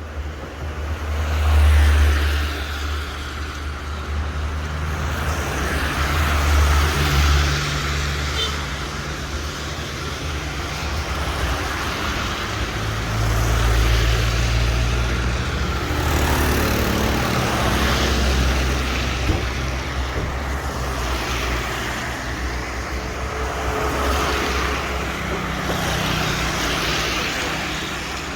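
Road traffic on a rain-wet street: cars pass one after another, their tyre hiss swelling and fading over a steady low engine rumble.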